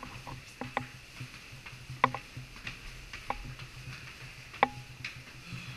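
Footsteps climbing stone spiral stairs: irregular sharp clicks and scuffs of shoes on the stone steps.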